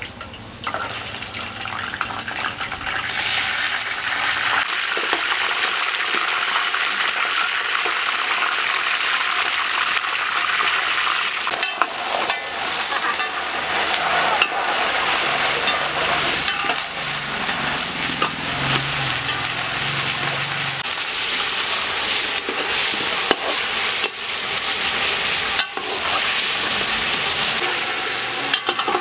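Pieces of meat sizzling as they fry in hot oil in a large aluminium pot over a wood fire, a steady hiss that swells a few seconds in as the meat goes in. A metal ladle stirring and clinking against the pot now and then.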